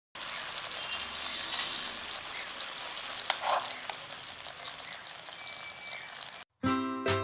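Thick tomato pizza sauce sizzling and bubbling in a pan as a steel spoon stirs it, with a few light clicks of the spoon against the pan. The hiss cuts off near the end and ukulele music begins.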